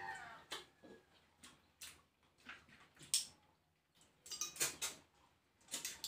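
Eating sounds close to the microphone: irregular sharp mouth smacks and clicks as crab and snails in coconut milk are eaten by hand, the loudest about three seconds in.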